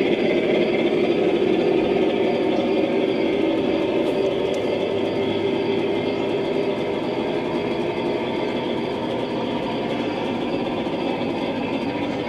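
Large-scale garden model train running on an outdoor track: a steady mechanical hum and rumble from the locomotive's motor, wheels and onboard QSI sound system, fading slowly.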